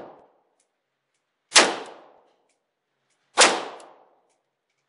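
Hungarian FEG AMD-65 AK rifle in 7.62x39 firing single shots: two sharp reports about two seconds apart, each with a short echoing tail off the indoor range walls.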